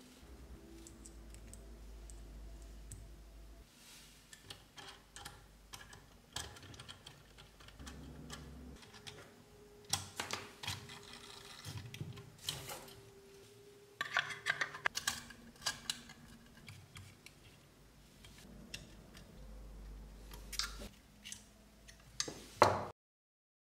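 Small metal tools and parts of a metal model car kit clicking and tapping as a wheel nut is done up with a small nut driver and screws are turned with a hex key. Scattered light clicks, busiest in the middle, with the sharpest click near the end.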